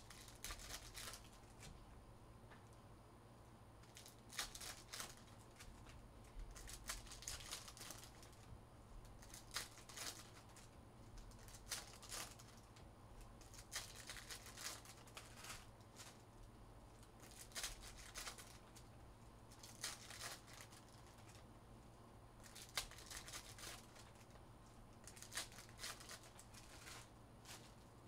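Chromium trading cards being thumbed off a pack one after another, the stiff card stock sliding and flicking against itself in faint, crisp little clusters every couple of seconds.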